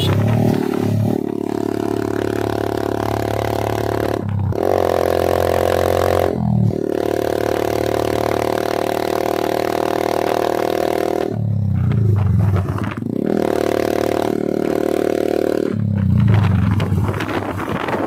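Motorcycle engine running at road speed through a replica Akrapovic slip-on exhaust. Its note holds steady, then breaks off and climbs again several times as the throttle is eased and reopened, with wind rushing over the microphone near the end.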